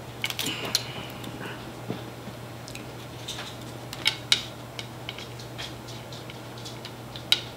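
Close-up eating sounds from a seafood boil: scattered clicks and crackles of shells being handled and food being eaten, loudest a few times, over a steady low hum.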